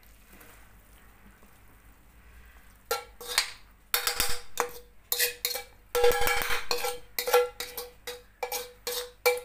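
Metal spatula scraping and knocking against a steel wok as noodle filling is pushed out of it. The first three seconds are quiet, then comes a quick run of sharp clanks, each with a short ringing tone.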